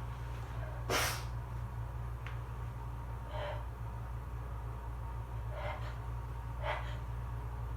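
A single sharp allergy sneeze about a second in, followed by three shorter, softer breaths, over a steady low hum.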